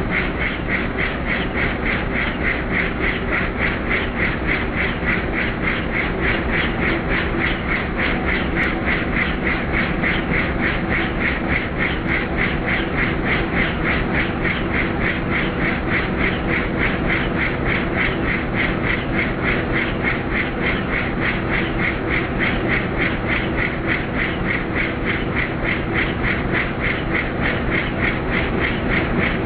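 Helicopter in flight, heard steadily: the rotor blades chop in a rapid, even beat over the steady drone of the engine.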